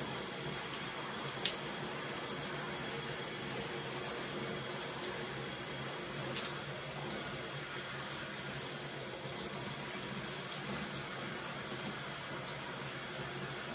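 Shower spray running steadily onto hair, skin and tiled walls as long hair is rinsed under it by hand. Two brief clicks stand out, about a second and a half in and again after about six seconds.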